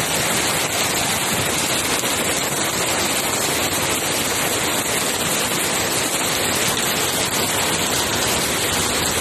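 Heavy rain pouring onto a flooded concrete lane: a steady, dense hiss of drops splashing into standing water.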